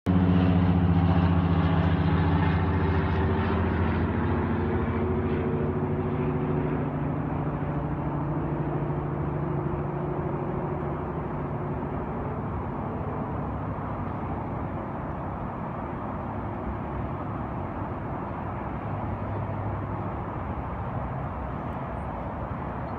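Road traffic: a vehicle engine's low hum, loudest at the start and fading away over the first several seconds, over a steady traffic rumble.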